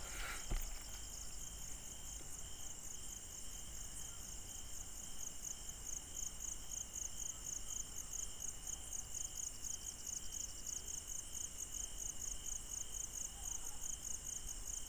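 Crickets chirping in a fast, even pulse of high chirps, over a lower steady insect trill.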